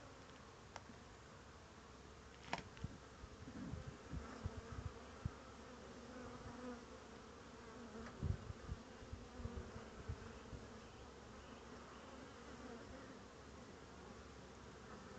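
Honeybees humming at a hive entrance: a steady, faint buzz of workers fanning their wings and flying in and out. A few dull thumps come through between about two and ten seconds in.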